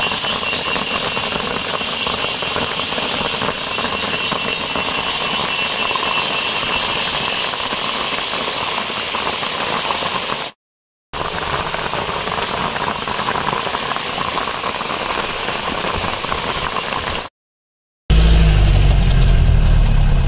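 Jeep driving on a rough forest track: engine running under a steady wash of rattling and road noise, cut twice by brief silences. Near the end a louder, deeper engine drone.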